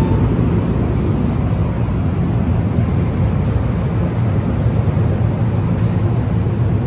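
A loud, steady low rumble of machinery running.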